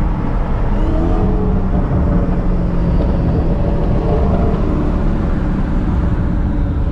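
Dodge Charger SRT Hellcat's supercharged 6.2-litre V8 running hard with traction control off, its note rising and falling as the throttle works through a corner.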